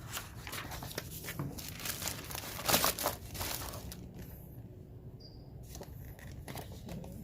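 Packaging crinkling and rustling as it is handled, busiest over the first four seconds with its loudest crackle near three seconds in, then softer handling sounds.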